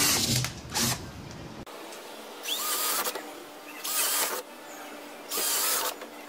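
Cordless drill running in several short bursts, each about half a second, as it drills holes through both layers of an aircraft cowling and its mounting flange for nut plates.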